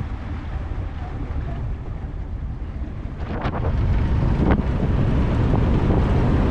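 Wind buffeting the microphone aboard a moving jon boat, over the low rumble of the boat running across open water. It grows louder about halfway through, and two sharp knocks come a little over a second apart.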